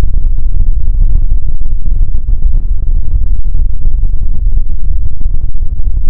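A loud sound effect slowed down drastically, now a continuous, distorted low rumble that flickers rapidly, with nothing high-pitched in it.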